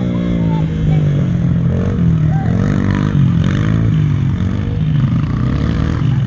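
Two small dirt bikes' engines revving up and down in pitch as they ride around a dirt track, throttling on and off through the turns.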